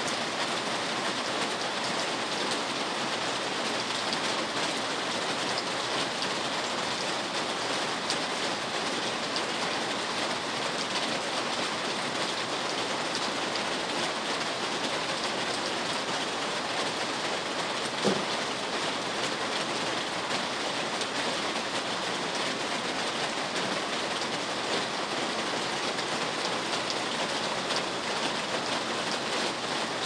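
Steady heavy rain falling, a constant even hiss with no let-up. About two-thirds of the way through there is a single brief knock.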